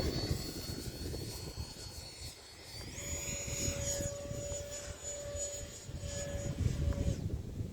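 Electric ducted fan of an RC Habu STS jet whining in flight. The whine steps up in pitch about three seconds in as the throttle opens, holds, then falls away shortly before the end. Wind buffets the microphone throughout.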